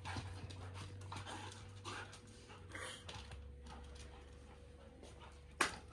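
Husky dog sounds: short, soft, irregular noises every second or so, with a sharp click shortly before the end.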